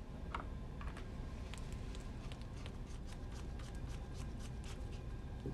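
Phillips screwdriver turning the screws that fasten an ink manifold into the printhead housing: a scatter of small, light clicks and ticks as the driver tip works in the screw heads, with hands handling the unit.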